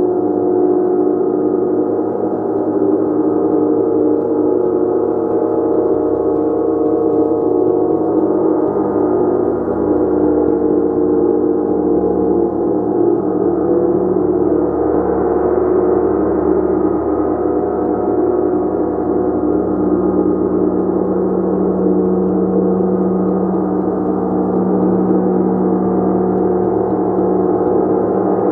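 Gong played continuously: a steady, dense wash of many overlapping ringing tones, with no single strike standing out.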